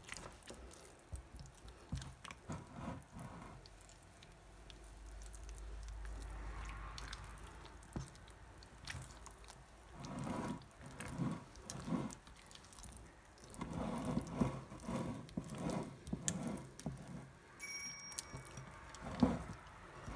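Stiff semolina and mango cake batter being stirred by hand in a glass bowl: wet squishing and squelching, with the metal utensil clicking and scraping against the glass in irregular strokes, busiest in the second half.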